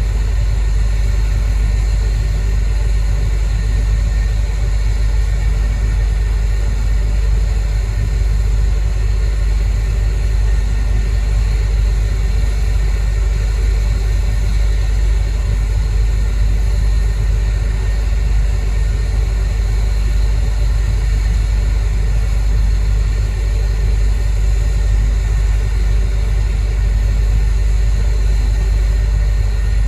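Heavy diesel machinery running steadily, a loud, unchanging low drone with no revs or pauses.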